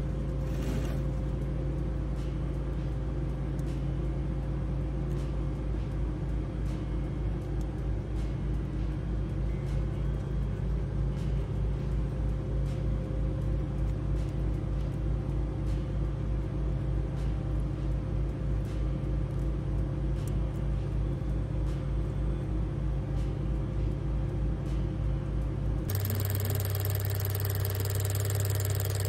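A steady low mechanical hum of a running engine. About 26 s in it changes suddenly to a different, deeper engine hum, idling steadily.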